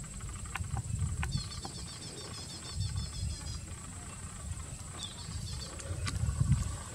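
Riverside outdoor ambience: runs of rapid chirping trills from a small bird, over a steady high-pitched insect-like whine and a low rumble, with a few faint clicks.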